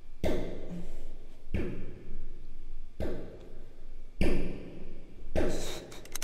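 A man sobbing in ragged, heaving breaths, about five sharp gasping sobs roughly a second and a half apart.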